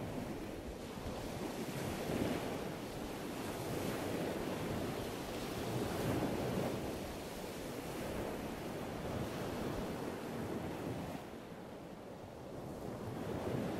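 Steady rushing noise without tones or clicks that swells about two and six seconds in and dips near the end.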